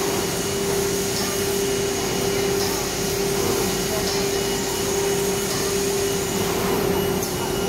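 Four-head CNC wood router machining a board: the spindle runs with a steady hum over an even rushing noise from the cutting and dust extraction.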